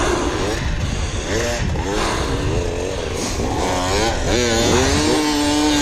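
Two-stroke dirt bike engine revving up and down several times under throttle, then holding a steadier, higher note near the end.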